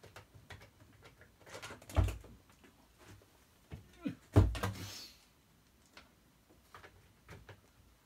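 Clicks and two heavy knocks, about two seconds in and again past four seconds, from handling an old Hoover Junior upright vacuum cleaner, its motor not yet running.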